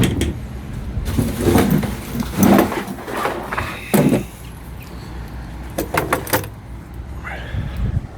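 Steady low rumble of a vehicle, with several short knocks and clatters over it.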